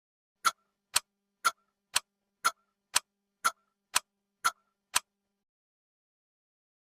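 Clock tick-tock sound effect: ten sharp, evenly spaced ticks, two a second, then it stops about five seconds in.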